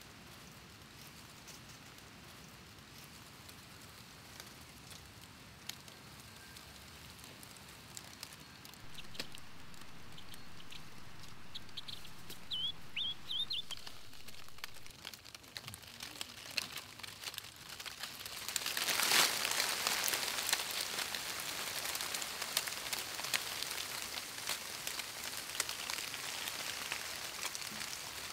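Quiet forest ambience with scattered light ticks and a brief high bird twitter near the middle; about two-thirds of the way in, a louder steady hiss of rain-like patter on leaves sets in and continues.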